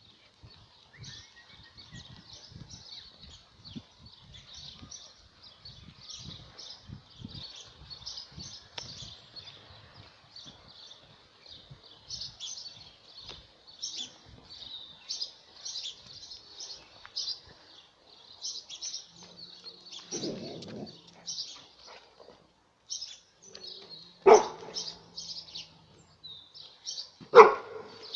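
Small birds chirp continuously. Near the end an Airedale terrier barks sharply twice, about three seconds apart, facing a cat.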